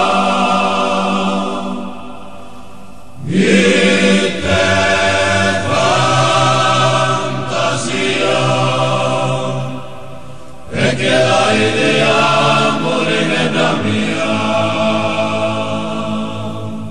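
Men's choir singing a slow Sardinian song in sustained, chant-like chords. Each new phrase comes in strongly after a brief softer lull, about three seconds in and again about eleven seconds in.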